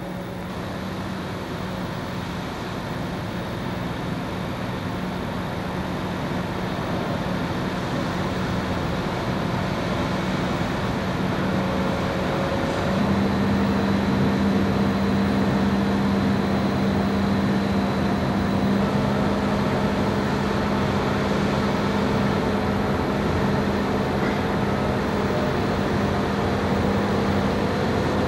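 Diesel engine of a Liebherr LTM 1800 mobile crane running under load while it hoists a large steel column, gradually growing louder, with a steady hum joining about halfway through.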